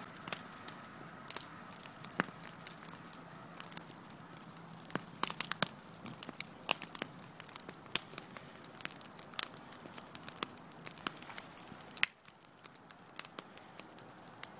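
Wood fire in a pottery pit-firing pit, crackling with irregular sharp pops and snaps, the loudest pop about twelve seconds in.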